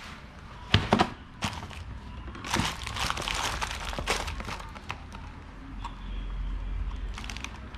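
Handling noise from working on parts by hand: a few sharp knocks and clicks, then a stretch of clicking with a crinkling rustle in the middle, settling to quieter handling.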